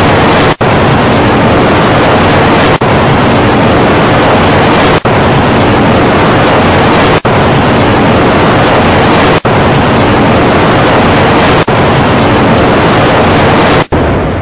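Loud, steady rushing noise like static, overloaded, broken by a brief cut about every two seconds.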